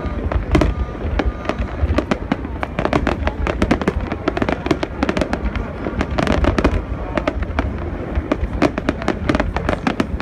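Fireworks display going off: many aerial shells bursting in quick succession, a dense run of bangs and crackles over a deep rumble.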